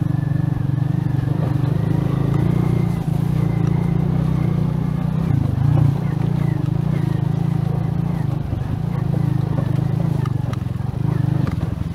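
Motorcycle engine running steadily under way, heard up close from the rider's seat, with brief dips in level about three seconds in and again around eight seconds.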